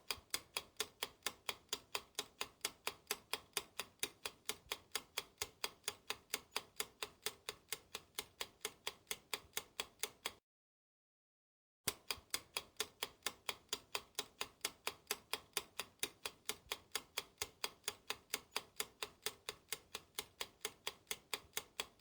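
Clock-style ticking of a countdown timer sound effect, evenly spaced at several ticks a second. It stops briefly about ten seconds in, then starts again.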